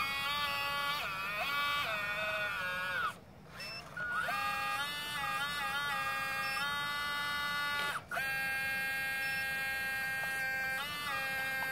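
Radio-controlled Cat 320 scale model excavator's electric hydraulic pump whining, its pitch stepping up and down as the boom, arm and bucket move. It drops out briefly about three seconds in, and for an instant around eight seconds.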